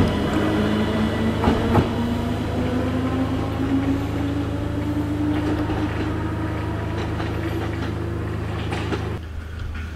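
Island Line Class 484 electric train under way, its traction motors giving a steady low hum and a whine that slowly rises in pitch as it accelerates, with a couple of sharp clicks about a second and a half in. The low hum drops off about nine seconds in.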